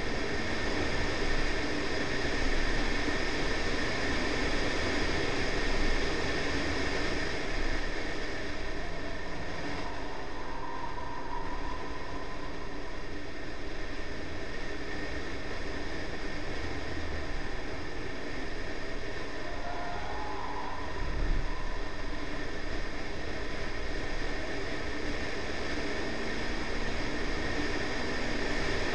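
Honda Civic's B18C4 1.8-litre four-cylinder engine running under load at track speed, heard with steady wind and road noise on an outside-mounted camera. A single low thump comes about two-thirds of the way through.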